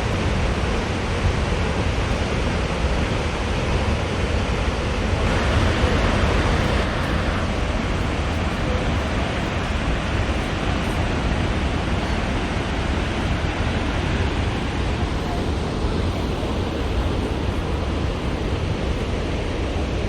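Steady roar of Snoqualmie Falls, a 268-foot waterfall, as continuous rushing noise with a heavy low rumble. It briefly grows brighter and louder about five seconds in.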